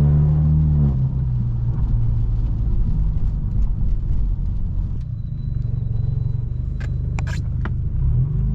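Straight-piped exhaust of a Stage 2+ tuned BMW F30 328i's turbocharged four-cylinder, pulling under throttle, then lifting off about a second in and coasting with a low, rough rumble. A few sharp cracks come close together near the end.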